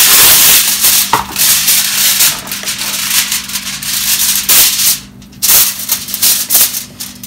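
A sheet of aluminium foil crinkling and rustling loudly as it is pulled off the roll, shaken out and spread flat. The crackle drops away briefly about five seconds in and again near the end.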